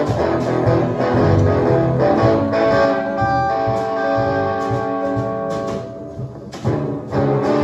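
Live blues band playing an instrumental passage, hollow-body electric guitar over drums and bass. About three seconds in the band holds a long chord, drops away briefly near six seconds, then comes back in full.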